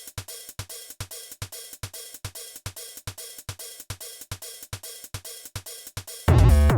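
Electronic background music with a steady quick drum beat; a much louder deep bass comes in near the end.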